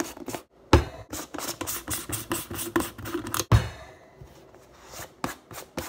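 Plastic supplement tubs handled on a kitchen counter: quick taps, knocks and rubs from fingers and lids, with a heavier thud as a tub is set down about a second in and another about three and a half seconds in.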